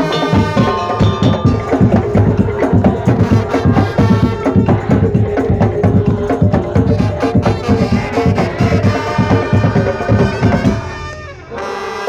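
Madurese ul-daul ensemble playing: fast, dense drum and wood-block-like percussion under a sustained, brassy melody line. The music dips briefly near the end, then comes back in.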